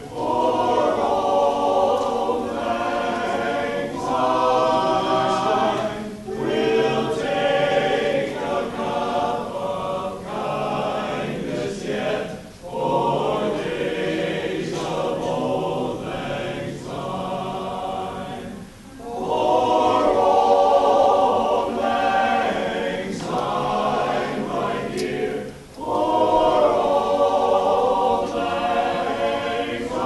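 Men's barbershop chorus singing a cappella in close harmony, in sustained phrases with short breaks between them.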